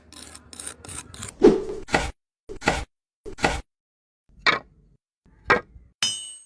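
A quick series of short, separate construction sound effects, such as scrapes, knocks and rasps, about one every half-second to second, each cut off into dead silence. A bright ringing ding comes near the end.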